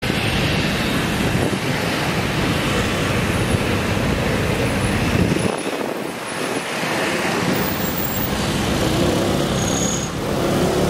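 Street traffic noise: motor scooters and cars running past, a steady wash of engine and tyre noise that dips briefly about six seconds in.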